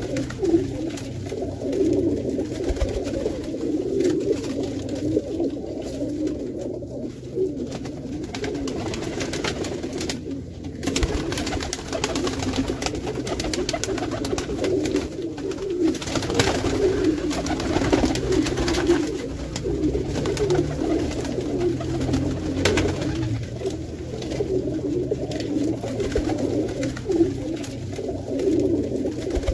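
A flock of Pakistani and Indian high flyer pigeons cooing continuously in a small room, many low, overlapping coos.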